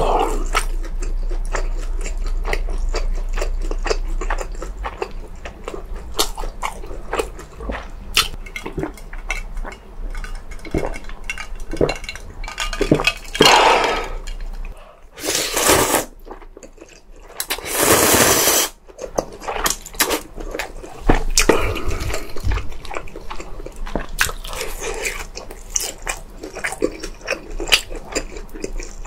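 Close-miked eating: chewing and wet mouth sounds with many small clicks of utensils against dishes, and three louder slurps of about a second each a little past the middle.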